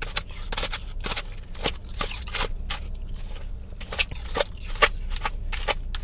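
A person chewing soft, powdery freezer ice close to the microphone: irregular crisp crunches, a few a second.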